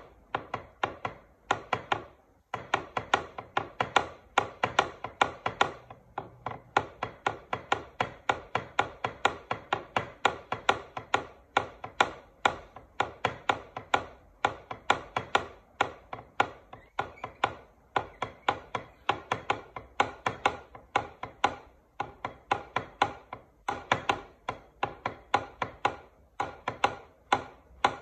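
Fast, steady run of sharp wooden-sounding taps and clicks, several a second, each with a short pitched ring.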